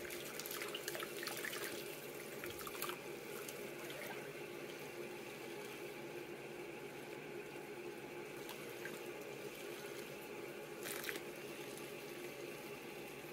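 Soapy water sloshing and dripping in a sink as hands wash a wet Yorkshire terrier, with small splashes in the first few seconds and again near the end, over a steady low hum.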